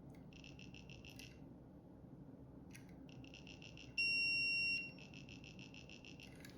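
A multimeter's continuity beeper chattering in rapid stutters, then giving one solid beep of just under a second about four seconds in, before stuttering again. It is the meter sitting on the edge between reading continuity and not.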